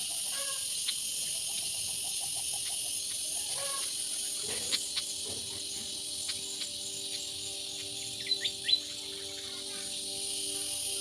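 Steady high-pitched insect chorus, like cicadas or crickets, with scattered short high chirps and a quick cluster of louder chirps about eight seconds in.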